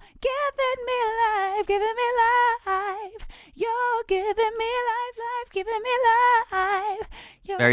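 Unaccompanied female lead vocal singing long, sustained notes with vibrato in short phrases, played through Logic Pro X's Compressor in its Platinum Digital model at about 2.4:1. The compression sounds very smooth.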